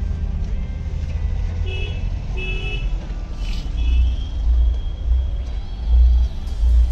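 Low, uneven vehicle rumble with two short horn toots about two seconds in.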